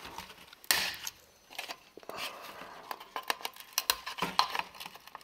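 Pliers working on a calculator circuit board, cutting and prying off chips: a run of small metallic clicks, snips and scraping, the sharpest snap a little under a second in.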